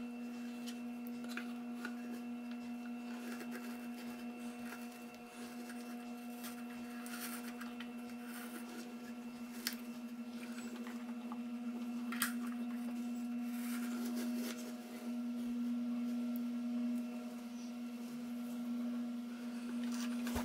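A steady hum on one low pitch with evenly spaced overtones, holding throughout, with faint rustling and a few light clicks as the fluffy fibre damping material is pulled out of a speaker cabinet.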